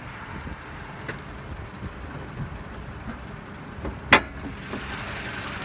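Car hood latch being released: one sharp metallic click about four seconds in, the loudest sound, over a low steady hum.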